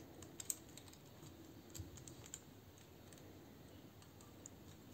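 Faint, scattered clicks of the hard plastic parts of a small Zeta Toys Mini Superitron transforming robot figure being handled and moved, the clearest about half a second in and twice around two seconds in.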